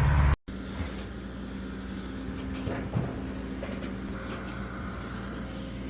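Engine idling with a steady low hum, and a single knock about 3 seconds in.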